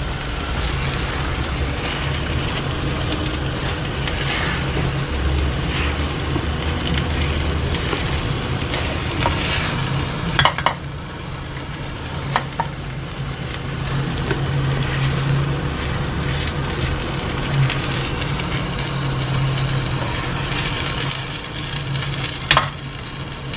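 Thick vegetable bhaji sizzling in a nonstick pan as a spatula stirs and mashes it, with a few sharper scrapes of the spatula against the pan, over a low steady hum.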